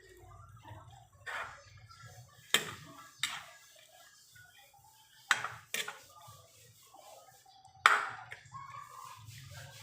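Kitchenware knocking and clinking: six sharp knocks with a short ring, spaced irregularly, over a faint low hum.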